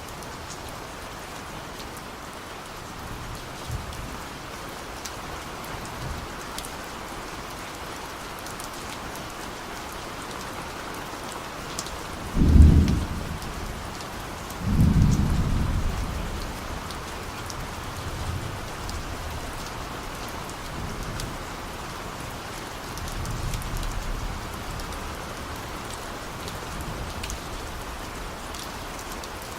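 Steady rain hissing, with scattered drop ticks, and distant thunder: a sudden low rumble about halfway through, the loudest sound, followed a couple of seconds later by a longer rolling rumble, with fainter rumbles at other times.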